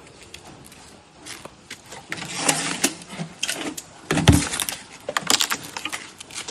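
Metal cans and metal parts clinking and clattering in irregular knocks, with a heavy thump about four seconds in.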